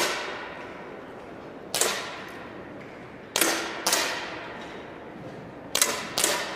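10m air pistols firing single match shots from several shooters on the line. There are about six sharp pops at uneven intervals, two of them close pairs, and each one echoes briefly around a large hall.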